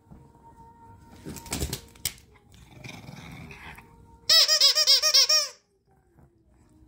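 Squeaker inside a plush carrot dog toy squeaking rapidly as a shih tzu bites it, about eight quick high squeaks in just over a second, starting a little past the middle. A brief rustle and a light knock come earlier.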